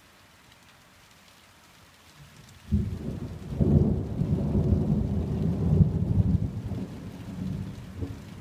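Thunderclap breaking suddenly about two and a half seconds in and rolling on as a long low rumble that slowly fades, over a steady faint hiss of rain.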